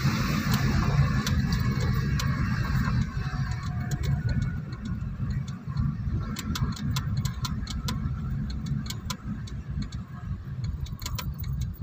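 Car driving on a rural road, heard from inside the cabin as a steady low rumble of engine and road noise. From about halfway in there is a run of quick, sharp ticks, two or three a second.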